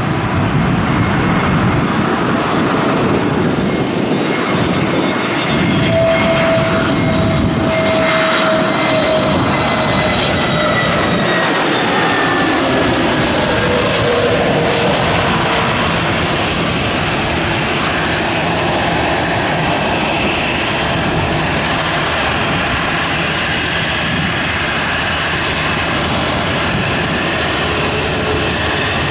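Airbus A320neo's CFM LEAP-1A jet engines on low final approach, loud and steady. Whining tones glide downward as the airliner passes, then the jet noise carries on steadily as it moves away.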